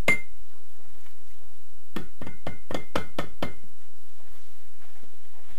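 Rubber mallet tapping a Honda VFR800Fi cylinder head, with its bolts already out, to break it loose from the engine: one knock at the very start, then a quick run of about seven knocks, roughly four a second, about two seconds in.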